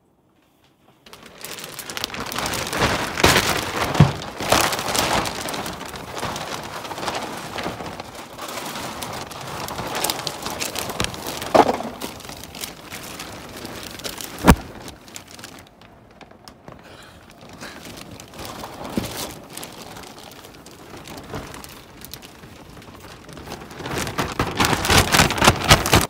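Large clear plastic moving bag crinkling and rustling as someone shifts around inside it, starting about a second in and loudest near the end, with a few sharp knocks along the way.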